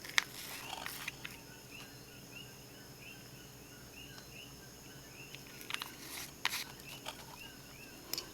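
A faint, steady run of short chirps, about two to three a second, from an animal, with a few sharp clicks and taps from small items being handled, the loudest just after the start and another cluster about six seconds in.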